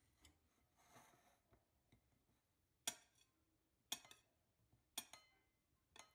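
Table knife chopping a peeled hard-boiled egg on a ceramic plate, the blade striking the plate with four sharp clinks about a second apart in the second half.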